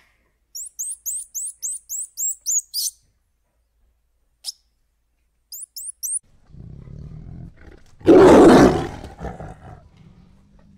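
A small bird chirping a quick run of about nine short rising notes, then a few more. Then a tiger growling low and giving one loud roar about eight seconds in, which fades off.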